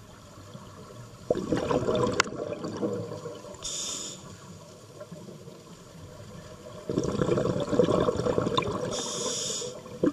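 Scuba diver breathing through a regulator underwater: two long bursts of exhaled bubbles, the first about a second in and the second near seven seconds, each followed by a short hiss of inhalation.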